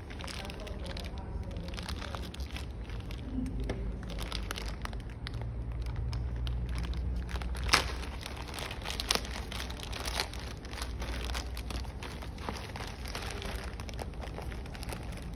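Packaging handled and opened by hand: irregular crinkling and rustling with sharp snaps and clicks, the loudest snap about eight seconds in, over a low steady hum.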